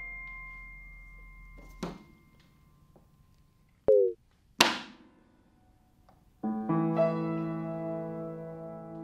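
Solo piano: a chord rings and dies away, a short knock and a brief falling tone break the pause, then new sustained chords come in about six and a half seconds in.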